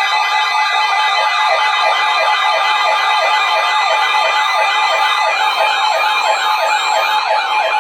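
Electronic emergency alert siren warbling, sweeping up and down about three times a second over steady tones. It is the loud alarm that marks an incoming emergency alert.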